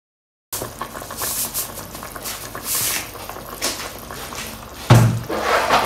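A pot of soup boiling, with an uneven noisy bubbling, and a single dull knock about five seconds in.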